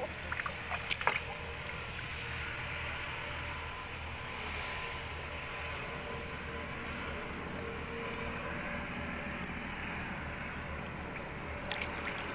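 Shallow pond water sloshing and trickling as a person wades and works with their hands in it, a steady watery wash. A few light knocks come in the first second and again near the end.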